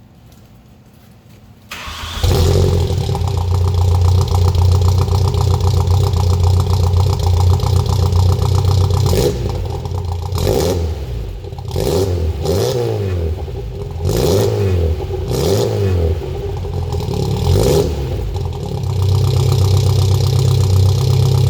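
A Volkswagen GTI's engine is cranked and starts about two seconds in, then runs at a steady idle. From about ten seconds in it is revved in about half a dozen short blips, each rising and falling, before it settles back to idle.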